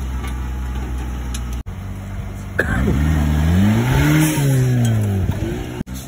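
Modified off-road competition 4x4's engine idling steadily, then, after a cut, revving up and easing back down over about two and a half seconds.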